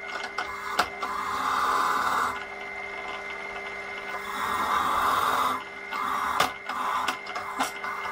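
Bench pillar drill running with a wire brush in the chuck, a flat metal bunk-frame bar pressed against the spinning brush in spells of scratchy scraping, with a few sharp clicks as the bar is shifted.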